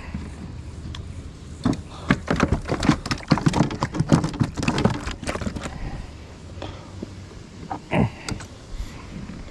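Handling noise while a freshly caught bass is unhooked and held: a quick, dense run of clicks, knocks and rattles for about four seconds, then a few lone knocks, the loudest a thump near the end.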